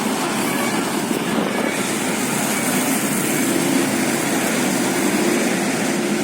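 Steady engine drone and road noise of a large bus.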